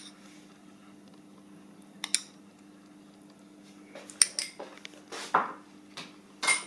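A few scattered clinks and taps of a utensil against ceramic bowls, several in quick succession in the second half, over a steady low hum.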